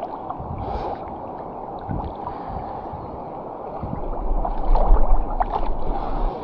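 Flowing river water, a steady wash, with a low rumble on the microphone from about four seconds in and a few small splashes or knocks near the end.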